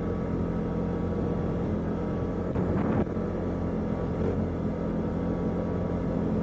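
CFmoto ATV engine running steadily, briefly louder for about half a second around two and a half seconds in.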